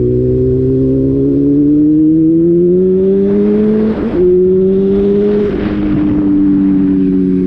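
Motor vehicle engine running under load, its pitch rising slowly for about four seconds, then dropping abruptly as at a gear change, and holding with a smaller drop later, with noisy rushes of sound over it.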